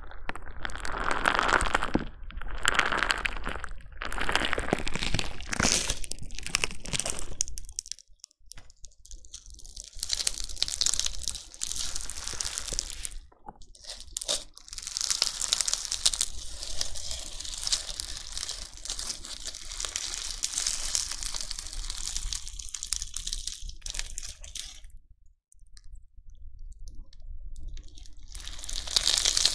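Crunchy bingsu slime being squished, its plastic beads crackling and crunching in runs of squeezes with a few short pauses.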